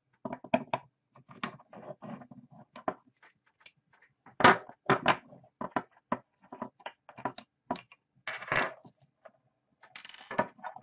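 Hands and a small tool handling a Western Digital WD400 hard drive's metal casing on a wooden desk: a quick run of clicks, taps and scrapes, with the sharpest knocks about four and five seconds in.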